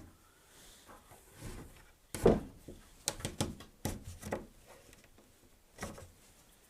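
A wooden bench dog with a bent retainer being pushed into a workbench dog hole and worked up and down to test its hold: a sharp wooden knock about two seconds in, then a string of shorter clicks, knocks and rubs, and one more knock near the end.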